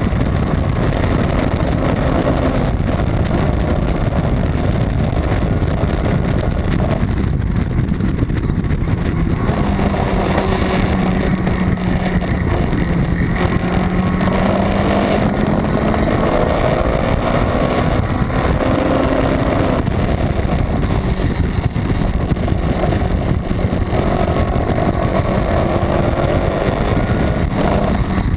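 Honda B18 non-VTEC four-cylinder engine in a Civic race car running hard on track, its pitch rising and falling as it pulls and lifts, under a loud, steady wash of road and wind noise.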